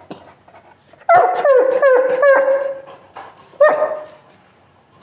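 A dog giving a string of four quick, high, falling whining cries about a second in, then one more short cry a little later.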